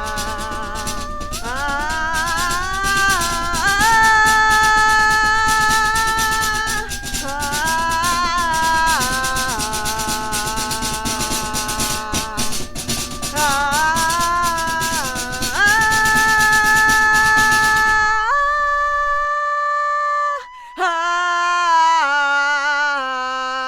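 Home-made music: a shaker-like rattle played on household objects keeps a busy rhythm under layered, held melody notes that step and glide in pitch. About 18 seconds in the rattle drops out, leaving the held notes alone, with a brief gap just after 20 seconds.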